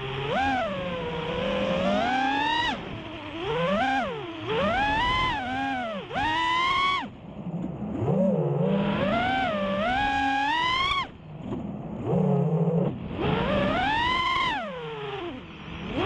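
FPV racing quad's four Emax Eco 2207 1700kv brushless motors and Gemfan 5-inch props whining on 6S power, heard from the onboard camera. The pitch swings sharply up and down with each throttle change and drops away briefly several times as the throttle is eased off.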